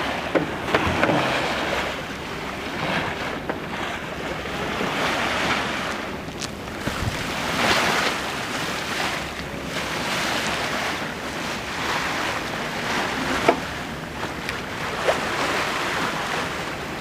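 Sea water washing along a sailing yacht's hull under way, with wind buffeting the microphone; the wash swells and eases every couple of seconds, with a few short knocks.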